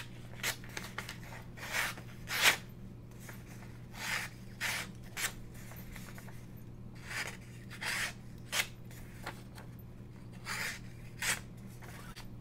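TwoSun TS240 folding knife's blade slicing through printer paper in a series of short crisp cuts, roughly one or two a second at uneven spacing, with the paper rustling as it is handled. This is a factory-edge sharpness test, and the edge cuts cleanly.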